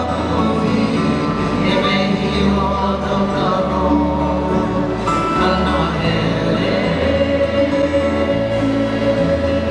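Choir singing with instrumental accompaniment and a bass line that moves about once a second.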